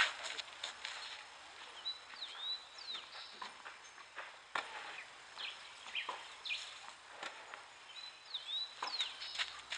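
Birds chirping in short curved calls several times over a steady outdoor background hiss, with a few sharp knocks of tennis balls on a clay court.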